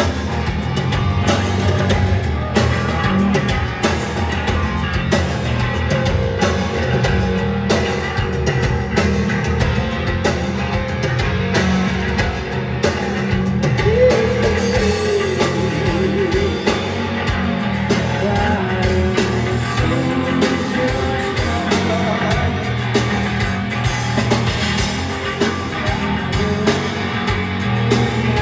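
Live rock band playing at a soundcheck: drum kit, distorted electric guitar and bass, with a sung vocal line over it.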